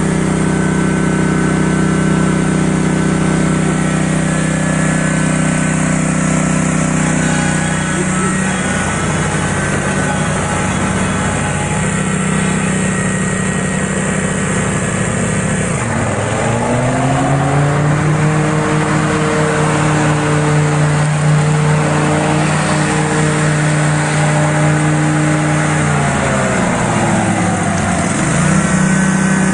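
Small gasoline engine running steadily. Its pitch dips and climbs back about halfway through, and again near the end.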